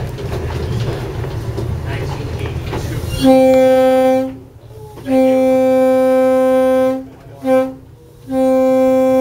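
Locomotive horn heard from inside the cab, starting about three seconds in and sounding two long blasts, one short and one long: the pattern of the grade-crossing signal. Before it, the low rumble of the running locomotive.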